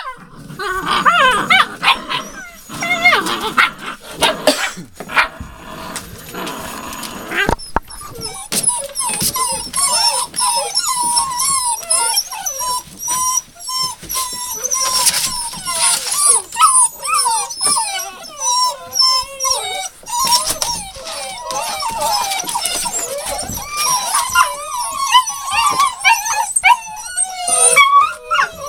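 A litter of hound puppies whining together, many short wavering high calls overlapping one another almost without a break. In the first several seconds there is rustling, as of the newspaper bedding being pushed about, under the whines.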